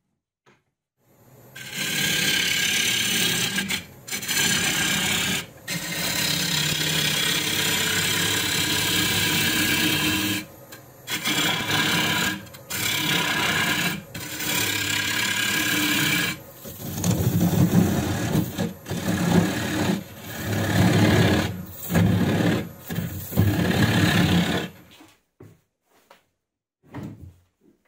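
Gouge cutting a walnut bowl blank spinning on a wood lathe: a continuous scraping hiss of the cut, broken by short gaps as the tool is lifted and repositioned. The cut stops a few seconds before the end.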